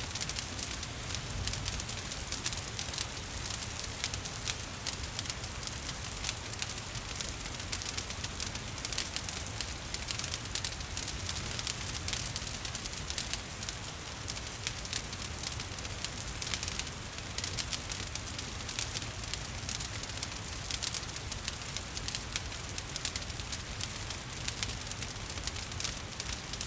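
Wood fire crackling with frequent sharp pops over a steady hiss of rain.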